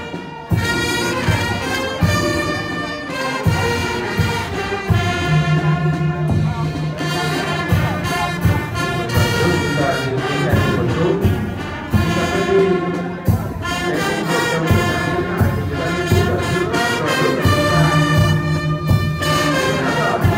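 Brass band music: horns and saxophones playing a melody over a regular drum beat.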